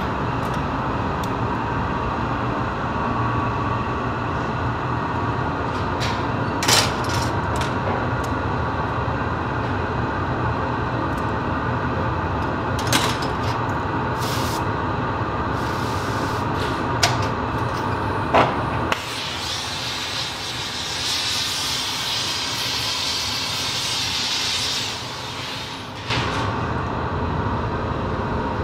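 Steady roar of a gas-fired glassmaking furnace, with a few sharp clicks of metal tools against the punty rod and glass. For several seconds in the second half the low rumble drops away and a higher hiss takes over, then the roar returns.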